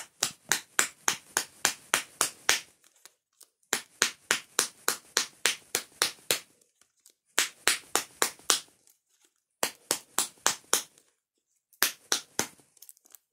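Cigarette pack being smacked repeatedly against the palm to pack the tobacco down: quick sharp slaps, about five a second, in five runs with short pauses between them.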